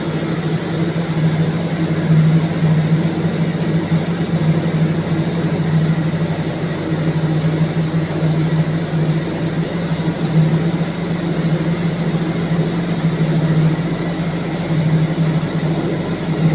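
Marine diesel generator engine running steadily in a ship's engine room: a loud, even drone with a strong low hum that does not change.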